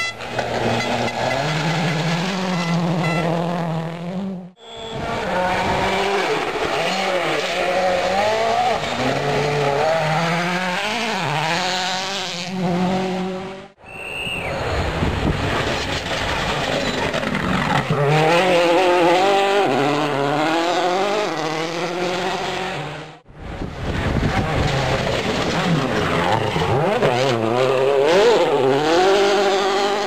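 World Rally Cars, among them a Ford Focus RS WRC and Citroën C4 WRCs with 2.0-litre turbocharged four-cylinder engines, passing at speed on a gravel stage, the engine pitch rising and falling repeatedly through gear changes over tyre and gravel noise. The sound breaks off abruptly three times, about 4, 14 and 23 seconds in, as one pass cuts to the next.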